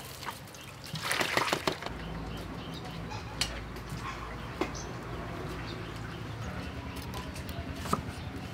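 Crackling rustle of a lemongrass stalk being knotted by hand about a second in, then a low rumble with a few single knife taps on a wooden chopping block.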